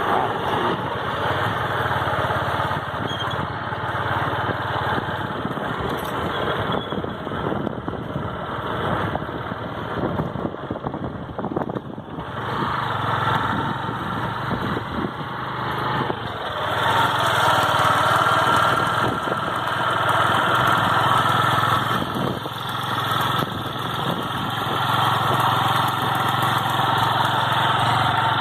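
Small motorcycle engine running steadily at low speed on a rough dirt track uphill, getting louder as it is given more throttle about two-thirds of the way in.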